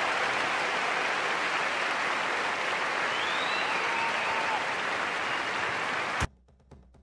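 Large audience applauding steadily, with a few whistles, cut off abruptly about six seconds in. Faint percussive music begins just after.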